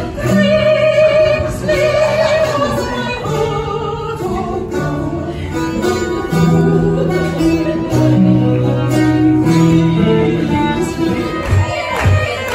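Live folk band playing: voices singing over strummed guitar with a bass line. Near the end it cuts to a different tune with a steady low beat.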